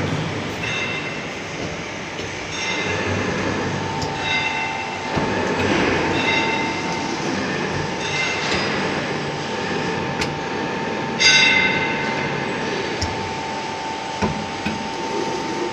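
Hydraulic NC press brake running: a steady machine hum, a whine that sets in about four seconds in, and short high squeals every second or two, the loudest about eleven seconds in.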